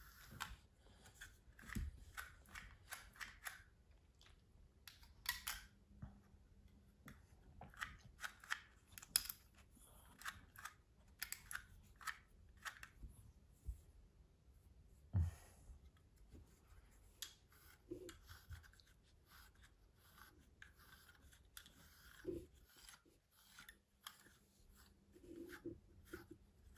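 Slicker brush raking through a Yorkshire terrier's long coat in faint, short, irregular scratchy strokes, with one dull bump about halfway through.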